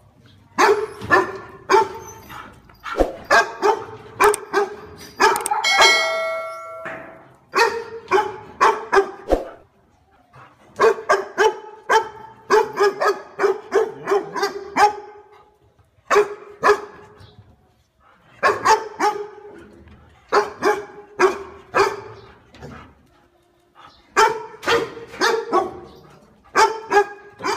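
Dog barking repeatedly in quick bursts of several barks, with short pauses between bursts. A brief held ringing tone sounds about six seconds in.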